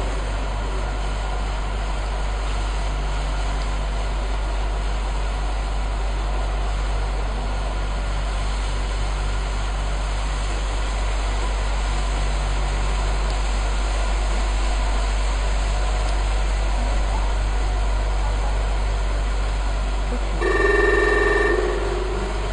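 Steady low hum and hiss of an indoor arena. About two seconds before the end, a ringing electronic signal tone sounds for about a second: the show-jumping start bell telling the rider to begin her round.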